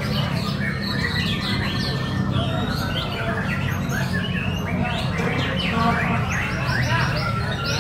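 Many white-rumped shamas (murai batu) singing at once, a dense overlapping mass of rapid whistles and chirps, over a low murmur of background voices.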